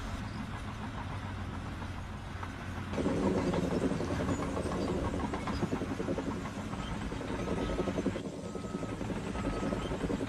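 Steady low rumble of running machinery, changing in tone about three seconds in and again near eight seconds.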